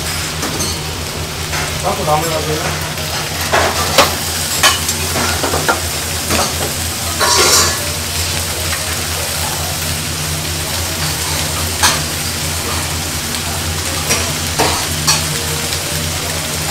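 Food sizzling in stainless steel bibimbap bowls heating on the lit gas burners of a commercial range, over a steady low kitchen hum. A few sharp metal clinks come from the bowls and utensils being handled.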